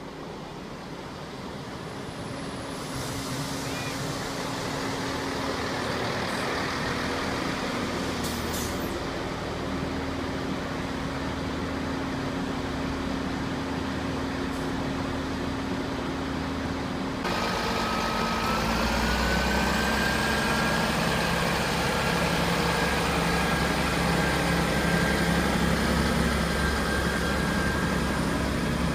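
Diesel passenger trains running through a station. First a diesel multiple unit approaches with a steady engine hum that grows louder. After an abrupt cut about 17 seconds in, a louder passing train brings a whine that rises in pitch and then holds steady.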